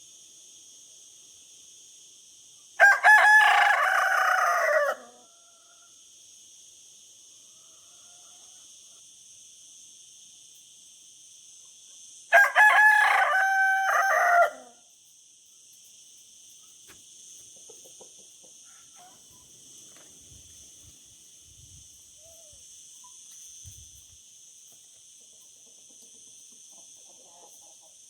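Rooster crowing twice, each crow about two seconds long, the second coming about ten seconds after the first.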